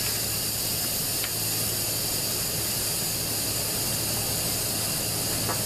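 Steam hissing steadily from the exhaust valve of a Farberware 7-in-1 electric pressure cooker as the leftover pressure vents after a natural release.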